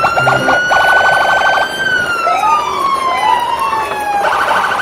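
Electronic, siren-like sound effects: one long tone that rises a little and then slowly falls, with short rising swoops over it, quick rapid beeps in the first second or so, and a buzzy rattle near the end.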